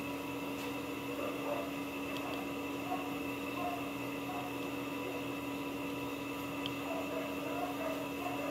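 A steady electrical hum with faint voices in the background.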